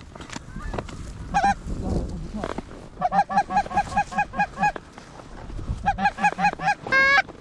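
Canada geese honking: runs of short, quick honks at about five a second, twice, then one longer honk near the end.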